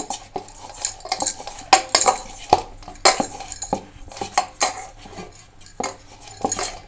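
Gulab jamun dough being kneaded by hand in a stainless steel bowl: irregular clinks and knocks of the steel bowl and the bangles on the kneading wrist.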